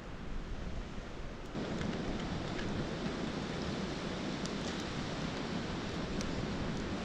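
Wind rushing over the microphone, growing stronger about a second and a half in, with a few faint sharp crackles scattered through it.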